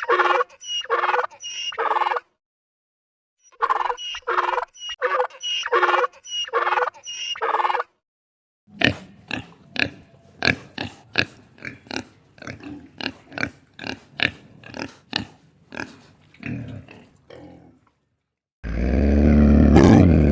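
Animal calls in three separate clips: repeated pitched honking calls about twice a second, then a long run of short rapid grunts, then a loud low roar that starts near the end.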